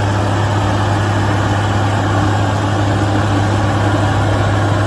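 Heavy engine idling steadily with a strong low hum, as of a bulldozer.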